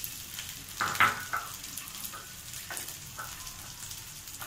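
Corn kernels sizzling as they go into hot oil in a non-stick frying pan, with a few scrapes and knocks of a wooden spatula and kernels against the pan, the loudest about a second in.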